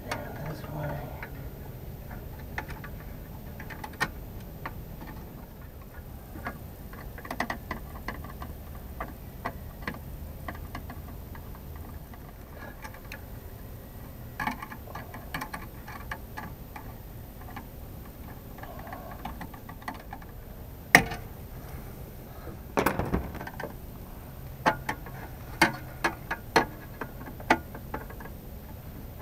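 Scattered small clicks and taps of wire ends and a tool against a metal electrical outlet box as wires are fitted to its terminals. The clicks come more often and sharper in the last third.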